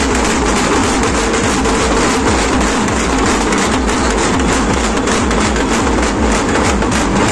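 Street procession din: rapid, steady drumming over a loud, dense wash of noise.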